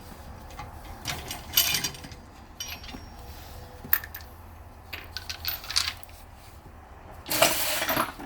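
Metal hand tools clinking and rattling during lug nut removal on a wheel with a locking lug nut: a scatter of sharp clicks, then a louder rattle near the end.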